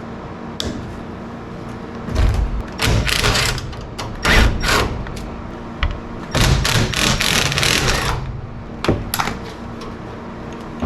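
Hand and tool work on a furnace cabinet: runs of rattling, scraping and knocking in bursts, loudest in the middle, over a steady low hum.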